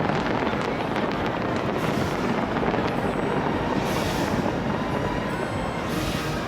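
Fireworks going off in a dense, steady barrage of bangs and crackle, with two brighter hissing crackles about four and six seconds in.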